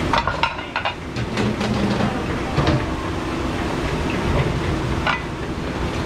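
Commercial dish machine running with a steady rumbling wash noise, over which plates and trays knock and clink as they are handled, several times in the first second and a few more later.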